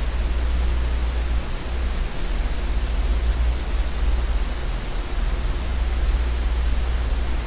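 Steady hiss over a strong low hum: the background noise floor of a computer microphone, with no other sound.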